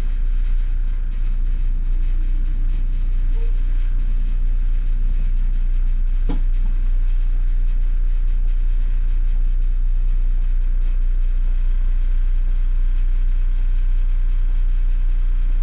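Diesel engine and drivetrain of a 2002 MCI D4500 motorcoach running steadily as the coach drives along, a constant low rumble. One brief click about six seconds in.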